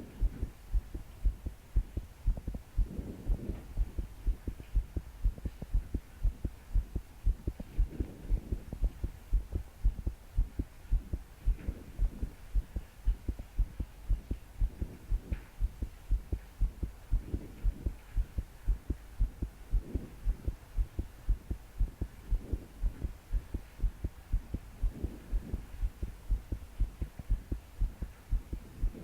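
A young woman's heart pounding fast, a steady run of low thumps, in what the uploader calls palpitations. Her deep, slow breaths come through as soft swells every few seconds, over a faint steady hiss of heavy rain.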